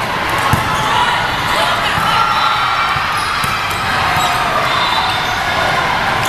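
Volleyball rally in a large echoing hall: the ball being hit, with a sharp thud about half a second in, over a steady din of many voices from spectators and neighbouring courts.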